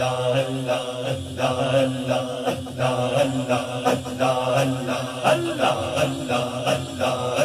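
Man chanting a devotional hamd in praise of Allah into a microphone over a public-address system. The melody rises and falls in a pulsing rhythm over a steady low drone.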